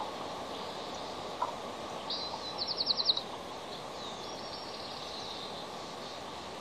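Bald eagle calling: a high, piping chatter that breaks into a quick run of about six clipped notes about two seconds in, then a fainter high call a second later, over a steady background hiss.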